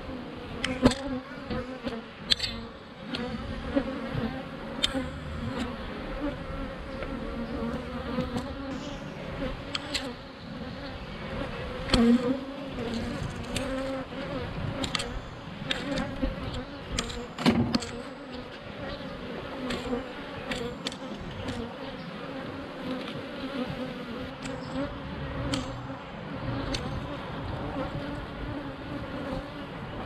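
Honeybees humming steadily in a low, even drone around an open hive, with scattered clicks and knocks of hive frames and parts being handled; the loudest knocks come about a second in, around twelve seconds and around seventeen seconds.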